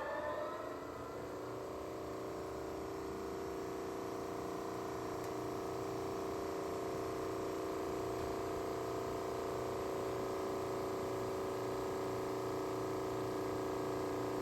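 Dayton 20-inch disc sander's 2 hp three-phase motor running steadily at speed, a steady hum of several tones. A louder sound with a changing pitch fades out in the first second, and the running sound then stays even.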